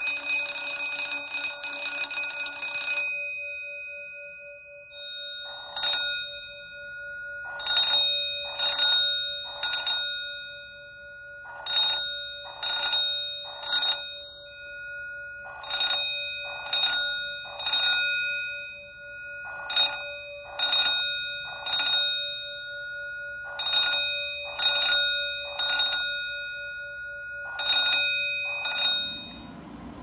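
Wheelock 46T-G6-24-WH six-inch fire alarm bell ringing continuously for about three seconds, then dying away. It then rings in groups of three short rings about a second apart, repeating every four seconds: the temporal-three evacuation pattern. It stops near the end.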